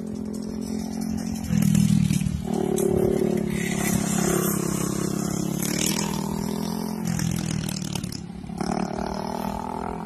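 Go-kart engine running steadily as the kart laps the skidpad circle. It gets louder as the kart comes close, about a second and a half in, and falls back about seven seconds in.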